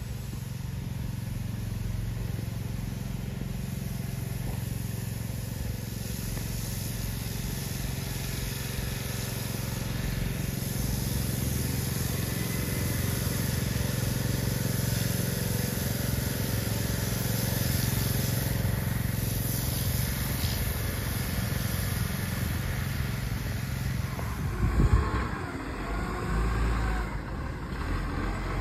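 Garbage truck engine running steadily. Near the end there is a sudden loud knock, after which the sound changes.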